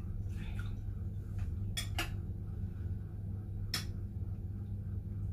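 Metal spoon clinking against a ceramic teacup and cereal bowl: two quick clinks about two seconds in and another near four seconds. A steady low hum runs underneath.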